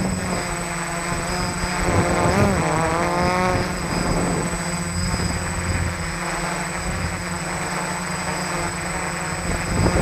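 Four SunnySky 980KV brushless motors of an F450 quadcopter spinning 10-inch propellers, heard close up from the camera on its frame. The motor sound runs steadily, and its pitch swoops up and down about two seconds in and again near the end as the motors change speed.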